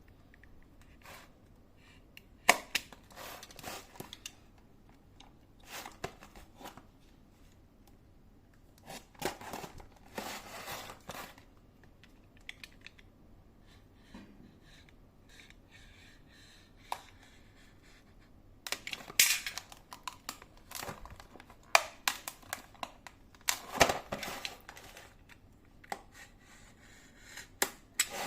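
The packaging of a sealed box being cut open by hand: irregular snips, scrapes and tearing sounds with sharp clicks, easing off to a quieter stretch in the middle before picking up again.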